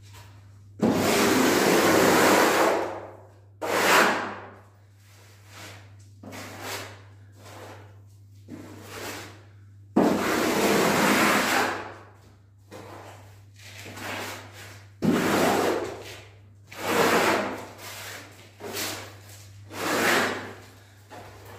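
A hand plastering tool scraping koroed (bark-beetle) decorative plaster across a wall in a series of long strokes, each a second or two, the loudest starting about a second in and again about ten seconds in. A steady low hum runs underneath.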